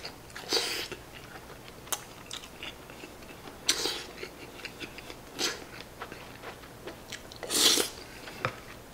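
A man eating saucy tenshinhan from a spoon: mouth sounds of slurping and chewing, with a few short wet bursts a second or two apart, the loudest one near the end, and a light click or two.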